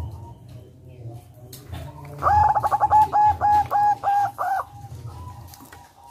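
Zebra dove cooing: a quick rolling run of about nine short, evenly spaced notes lasting a little over two seconds, starting about two seconds in.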